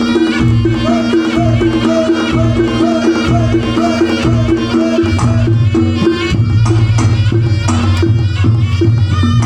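Javanese langgam played by a gamelan ensemble with kendang drumming: a repeating melody over steady held tones and a low bass, with quick drum strokes running through it.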